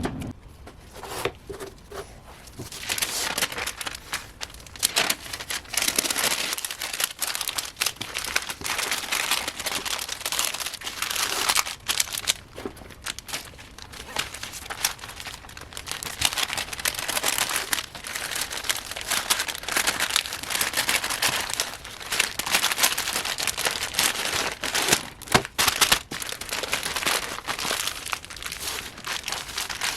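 Scratchy rubbing and crinkling in irregular strokes, after a quieter first two seconds.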